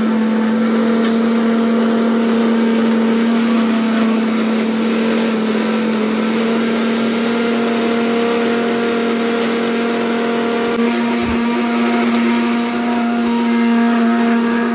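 Electric mixer grinder (mixie) running steadily at full speed, dry-grinding roasted cashews and almonds to a powder, then winding down as it is switched off at the very end.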